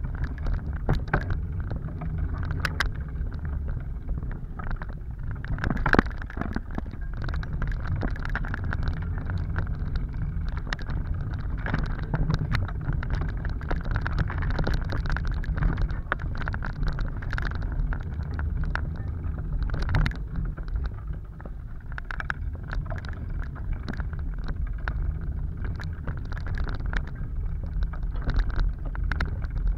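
Riding a bicycle along a bumpy trail: wind rumbling steadily on the camera's microphone, with frequent clicks and rattles from the bike, the sharpest about six seconds in.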